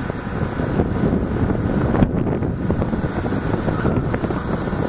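Wind buffeting the microphone, with the faint, steady drone of a distant 50cc quad ATV's engine under it.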